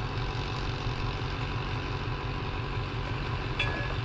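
An engine running steadily at idle, a low pulsing hum, with one short click near the end.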